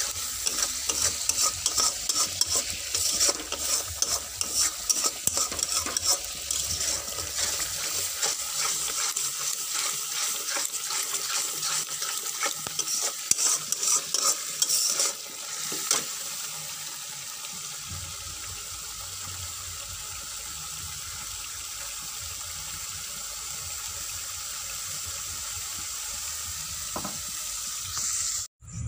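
Red masala paste frying in a metal kadai, sizzling while a spatula scrapes and knocks against the pan in quick irregular strokes; the masala is nearly done. After about 16 seconds the scraping thins out and a steady sizzle carries on.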